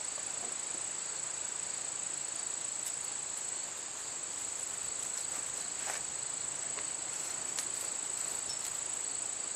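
Steady high-pitched chorus of insects, with a couple of faint knocks in the second half.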